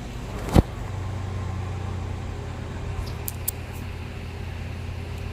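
2006 Subaru Tribeca's 3.0-litre flat-six engine idling steadily, really smooth with no misfire on cylinder 1. There is one sharp click about half a second in.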